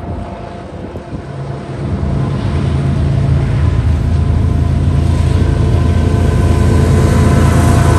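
Diesel-electric freight locomotives approaching at track speed. A low engine drone grows louder over the first few seconds, then holds steady and loud.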